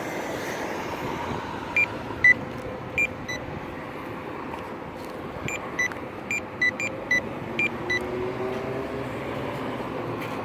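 Pedestrian crosswalk push button giving about a dozen short electronic beeps at two slightly different pitches, irregularly spaced, over steady road traffic.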